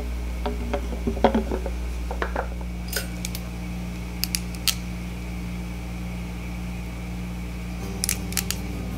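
Sharp metallic clicks and snips of hand wire pliers being worked on control-cable ends: a few about three seconds in, three quick ones around four and a half seconds, and more near the end. Softer knocks of handling come in the first couple of seconds, and a steady low hum runs underneath.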